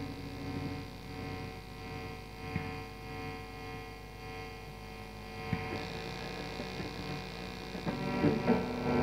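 Experimental noise music: a dense electronic drone of many steady humming tones with scattered clicks and crackles, growing louder and busier near the end.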